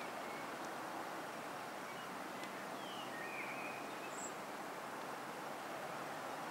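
Steady outdoor background noise with a few short bird chirps near the middle.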